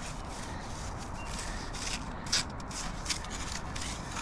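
A string of short, irregular scratchy rustles of leaf litter and soil being disturbed, a few a second.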